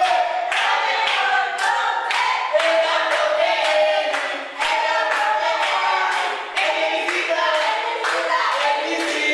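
A group of young voices singing or chanting together, with hand-clapping keeping a steady beat of about two claps a second.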